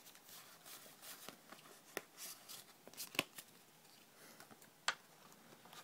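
Pokémon trading cards being handled and slid against one another as they come out of a freshly opened booster pack: scattered light rustles with a few sharp snaps.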